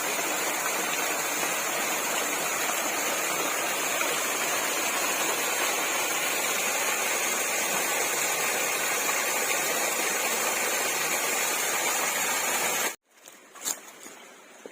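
Steady rushing of a waterfall. It cuts off abruptly about thirteen seconds in, leaving a much quieter background with a few sharp clicks.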